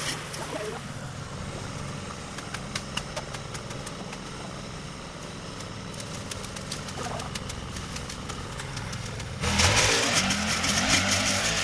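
A small engine running steadily. About nine and a half seconds in, the sound jumps to a louder, hissier level.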